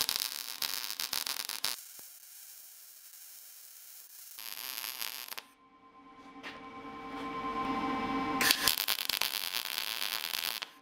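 Wire-feed (MIG) welder arc crackling as steel bars are tack-welded together, in three runs: one at the start, a short one in the middle, and a longer, louder one near the end.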